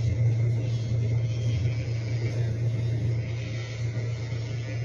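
Handheld electric pet nail grinder running with a steady hum, its rotary head grinding down a French bulldog's claws.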